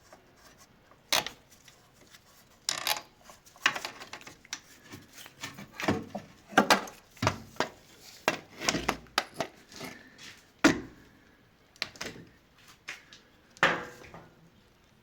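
Irregular knocks, clinks and scrapes of tools and metal parts being handled, a couple of dozen separate strikes with short rubbing between them.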